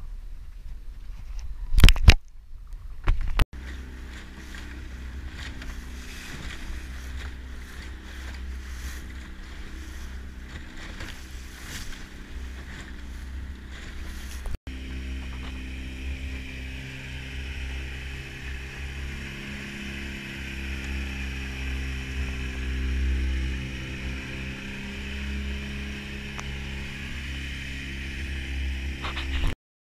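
Small boat's motor running steadily underway, with water and wind rushing past. A few sharp knocks come in the first seconds, the loudest about two seconds in.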